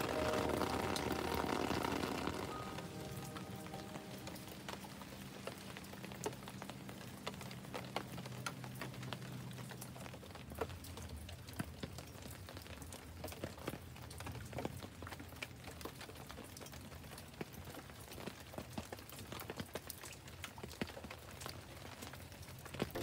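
Rain falling on a garden, with many separate drops ticking on leaves and hard surfaces over a soft steady hiss.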